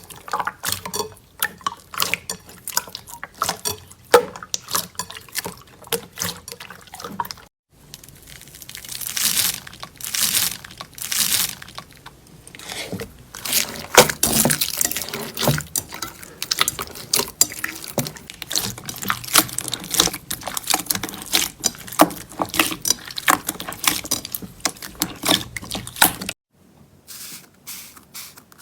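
Slime being squeezed and pressed: wet squelching with many small clicks and pops as air bubbles burst, breaking off abruptly about a quarter of the way in and again near the end.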